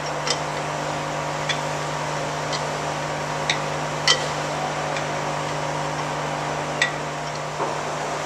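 About six sharp metallic clinks of a steel hand tool against a steam locomotive's running gear, irregularly spaced and each ringing briefly, over a steady low machine hum.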